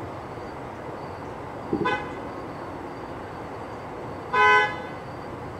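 A car horn honks briefly about four and a half seconds in, over steady background noise; a shorter, quieter pitched blip comes a little under two seconds in.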